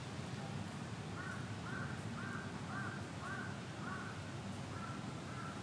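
A crow cawing repeatedly at a distance, a run of about eight caws at roughly two a second, starting about a second in, over steady low background noise.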